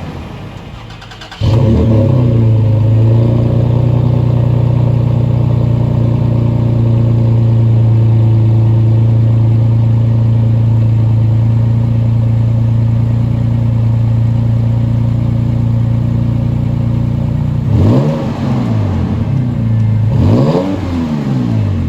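2020 Toyota Tacoma's engine and exhaust idling with a steady drone that comes in suddenly about a second and a half in. Near the end the throttle is blipped twice, each rev rising and falling quickly before settling back to idle.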